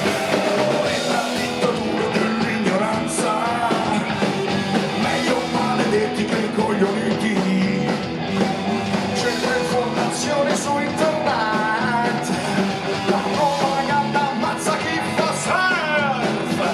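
Rock band playing an instrumental stretch of the song: drums and guitars, with a lead melody line that bends up and down in pitch.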